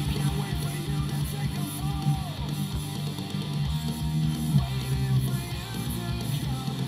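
Hard rock song playing: a strummed electric guitar riff over bass guitar and busy, driving drums.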